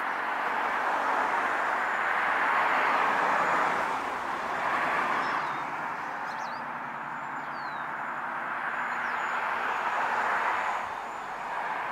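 Road traffic: the rush of passing vehicles, swelling and fading, loudest in the first four seconds and again around ten seconds in. A few faint, short high chirps sound over it.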